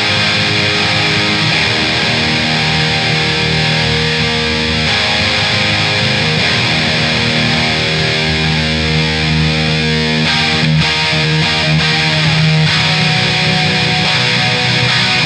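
Instrumental stretch of a rock song led by distorted electric guitar, playing at a loud, steady level with no singing.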